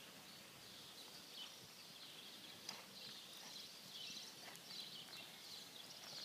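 Faint outdoor ambience: small birds chirping steadily in a high, continuous twitter, with a few soft hoofbeats of horses trotting on arena sand.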